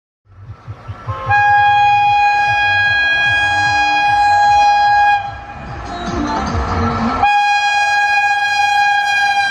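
Indian Railways electric locomotive hauling the Kota Jan Shatabdi Express sounds its horn in one long steady blast of about four seconds, then a second long blast starting about seven seconds in, over the low rumble of the approaching train.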